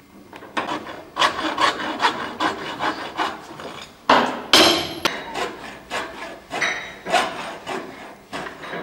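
Hand tool scraping or rubbing on the locomotive's metal in repeated strokes, about two a second, with one louder, longer scrape about four seconds in.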